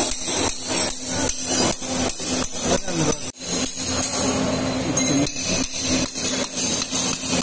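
Repeated chopping blows of a heavy knife hacking through a tuna head on a stone table, about three to four sharp strikes a second, with a short break near the middle.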